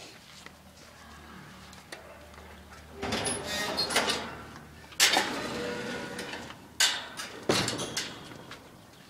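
Wire-mesh kennel fencing rattling and clanking, starting about three seconds in, with sharp metallic clanks around five and seven seconds in.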